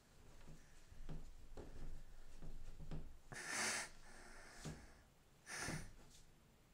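Soft taps and scuffs of a hand and a cat's paw batting at each other on a wooden floor at the gap under a door, with two short breathy snorts, one about halfway through and one near the end.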